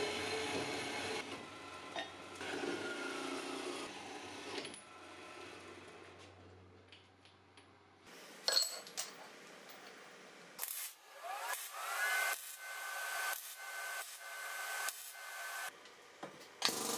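A string of quick-cut metalworking sounds. First a machine runs with a steady low hum, matching a horizontal metal-cutting band saw working through steel tube. Then come a few sharp metal clinks, a power tool spinning up with a rising whine and running steadily, and a clank near the end.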